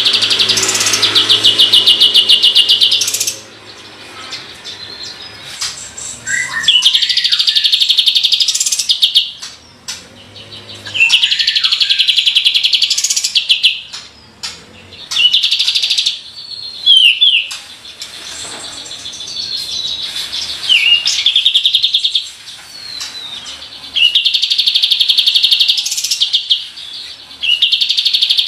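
Kapas tembak bulbul singing its rolling 'tembakan' song: rapid-fire trills of high, even notes, each a couple of seconds long and repeated every few seconds, with short whistled notes between the rolls.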